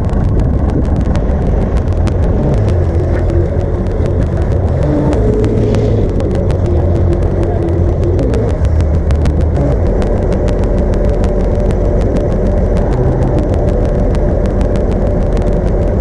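Telehandler's diesel engine running steadily as the machine drives in, its engine speed shifting a little now and then.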